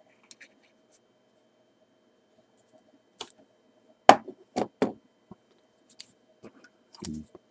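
A partly disassembled Kiev-17 camera body being handled and turned over, with scattered sharp clicks and knocks of its metal parts. The loudest are a quick run of three about four to five seconds in.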